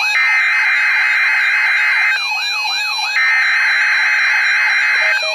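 NOAA Weather Radio SAME alert header: two-second bursts of screechy digital data tones with about a second's gap between them, marking the start of a Required Weekly Test. A quickly rising and falling siren-like alert tone sounds in the gaps.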